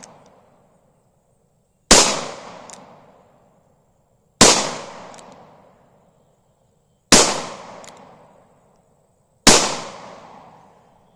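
Four shots from a Charter Arms Bulldog revolver chambered in 45 Colt, firing hot 45 Colt loads, spaced about two and a half seconds apart. Each shot is a sharp, loud crack followed by a long fading echo.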